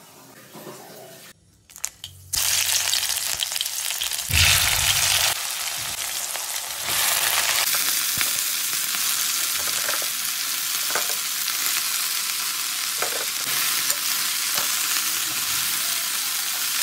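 Loud, steady sizzling of wet, freshly washed mustard greens frying in hot oil in a large metal pan. The sizzle starts suddenly about two seconds in after a faint start with a few clicks, and surges loudest around four to five seconds in.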